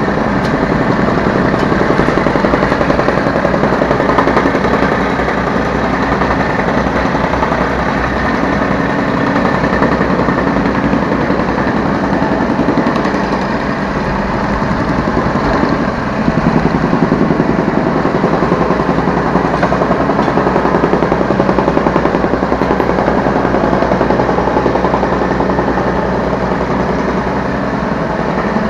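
Yanmar B3 Sigma 3-tonne mini excavator's diesel engine running with a rapid clatter, heard from the operator's seat; it gets louder about sixteen seconds in.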